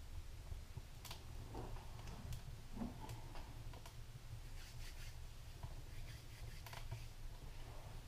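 Faint scattered clicks and light ticks from a small wood stove with its fire burning, as its door is opened and the fire is tended, over a low steady rumble.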